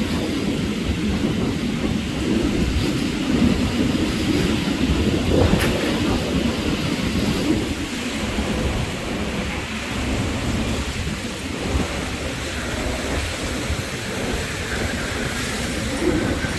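Hurricane eyewall winds blowing hard and steadily, with rain driven against everything and gusts buffeting the microphone into a deep rumble.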